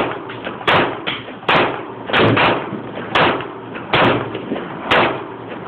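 A string of gunshots at a shooting range: about eight sharp reports, most roughly a second apart with two close together near the middle, each trailing a short echo.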